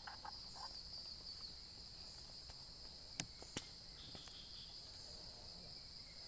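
Steady, faint high-pitched trilling of insects, with two sharp clicks close together about three seconds in.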